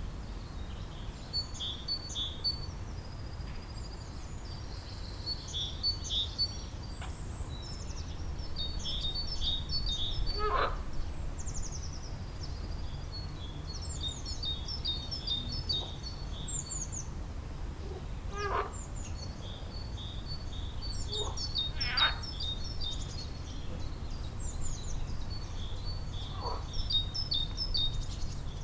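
Songbirds chirping and singing in quick, repeated high phrases, with a few louder short calls that drop in pitch, over a steady low rumble.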